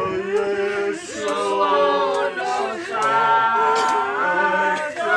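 A group of voices singing unaccompanied, men and women together, holding long notes.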